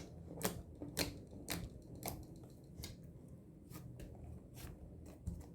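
Clear slime being squeezed and poked by hand, giving a series of short sharp clicks and pops, about two a second at first, then sparser.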